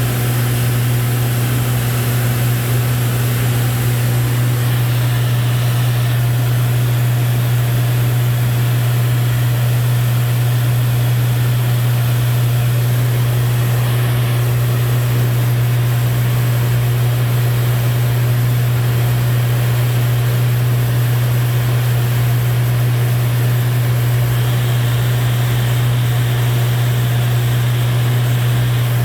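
Cockpit noise of a Lancair 4P in cruise flight: its engine and propeller make a strong, steady low drone under an even hiss of rushing air, with no change in pitch.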